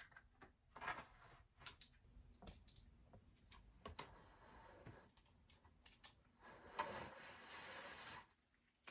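Faint scattered clicks and taps with soft rustling, as of small objects being handled, and a longer rustle about two-thirds of the way in.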